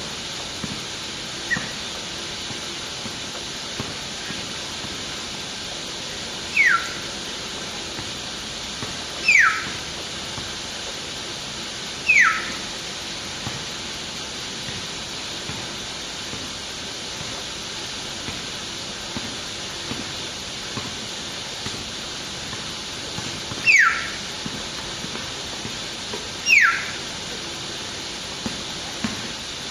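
Hill myna (burung beo) giving short, loud whistles that fall steeply in pitch, five of them spaced a few seconds apart with a long gap in the middle, over a steady hiss.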